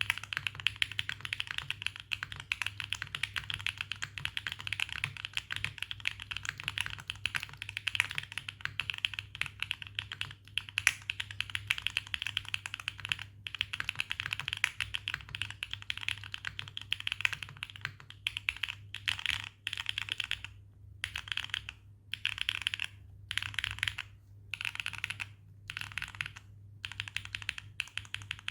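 Fast typing on a Neo80 mechanical keyboard with Epomaker Wisteria tactile switches, mounted on a carbon-fibre plate with no foam, under Swagkeys Classic Red keycaps. The keystrokes run on without a break for most of the time, then come in short bursts with brief pauses over roughly the last ten seconds.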